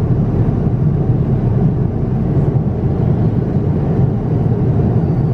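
Airliner cabin noise in flight: a steady, even low rush of engine and airflow noise.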